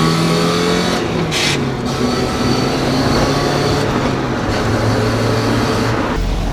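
Mazda Miata NA6's 1.6-litre four-cylinder engine running through a Yonaka aftermarket exhaust, heard from inside the cabin while driving: the engine note climbs a little in the first second, holds, then drops lower about four seconds in. The occupants hear it as almost no different from the stock exhaust.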